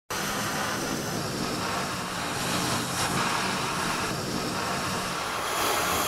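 Strong wind recorded on a handheld recorder and processed to sound like hurricane-force storm wind: a steady rushing noise with slight swells, starting suddenly.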